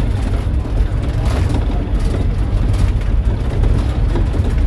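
Safari vehicle's engine running and its body rumbling as it drives along a dirt track, heard from inside the cabin, with a couple of brief knocks.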